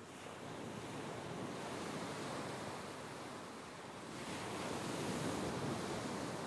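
Ocean waves washing ashore, a steady surf noise that swells twice. The second swell is the louder, peaking about five seconds in.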